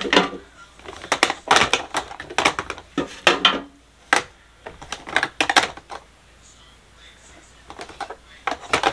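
Plastic makeup compacts and powder jars clicking and clattering as they are set down and shuffled in plastic drawer bins. The knocks come in quick runs, fall quiet for a couple of seconds, then pick up again near the end.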